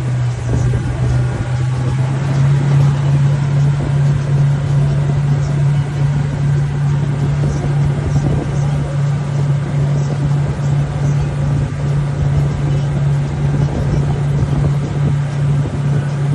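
Motorboat's outboard engine running at steady high speed while towing an inflatable, a loud, even drone over the rush of the churning wake.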